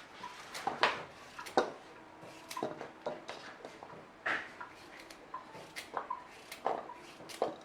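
Irregular clinks and knocks of kitchen utensils and dishes being handled, about a dozen, a few leaving a brief ring.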